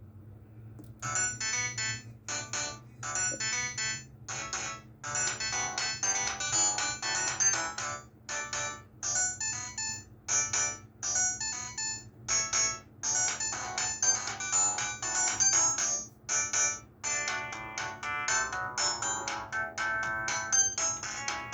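Huawei ETS688 phone playing a ringtone melody through its loudspeaker, starting about a second in: a quick run of short chiming notes, several pitches at once, over a steady low hum.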